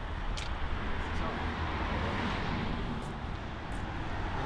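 Street traffic: cars driving past, a steady hiss of tyres and engines that swells about half a second in and eases a little near the end.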